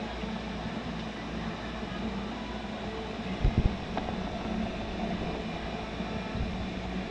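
Steady low hum of reef aquarium equipment such as pumps and filtration, with two or three short low thumps about three and a half seconds in.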